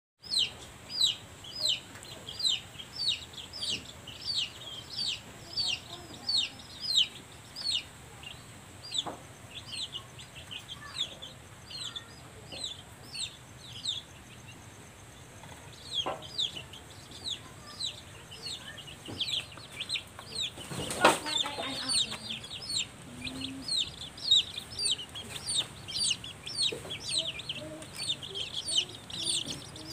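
Chicks peeping continuously: a steady run of short, high, falling peeps, two or three a second. A single sharp knock sounds about twenty-one seconds in.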